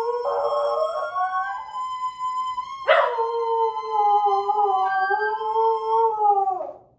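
A small dog howling along with a recorder's long held notes. A new howl starts sharply about three seconds in and slides down in pitch before breaking off near the end.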